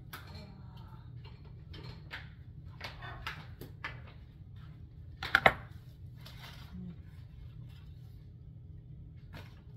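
Kitchen utensils being handled: scattered light clicks and rustles, with a sharp double clack a little past halfway, over a steady low hum.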